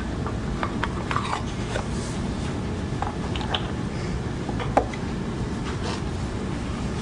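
Scattered light wooden clicks and knocks as Montessori knobless cylinders are set down and taken from their wooden box, the sharpest about five seconds in, over a steady low hiss and rumble.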